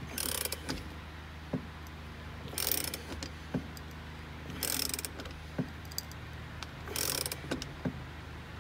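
A hand ratchet tightens the centre forcing bolt of a steering wheel puller, pressing the steering wheel off its column shaft. It makes four short runs of ratcheting clicks about every two seconds, with single clicks between the strokes.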